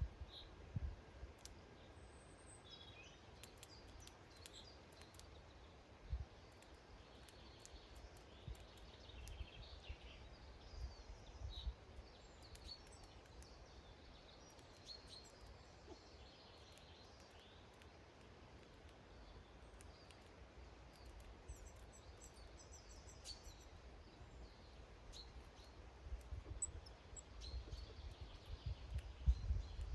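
Small garden songbirds chirping faintly and intermittently, with short high calls and ticks scattered throughout. Low rumbling bumps near the start and in the last few seconds.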